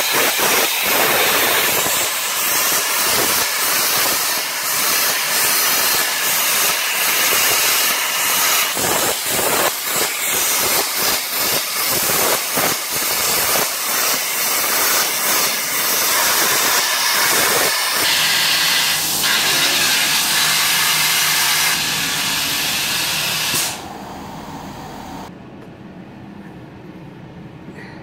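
CNC plasma cutter torch cutting through an old steel radiator panel: a loud, steady hiss with irregular crackling. The cut stops about three-quarters of the way through, and a quieter low hum is left.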